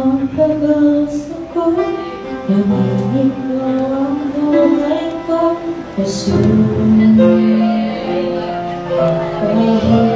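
A young woman singing a Tagalog worship song into a microphone over instrumental accompaniment, moving between sustained notes with one long held note a little past the middle.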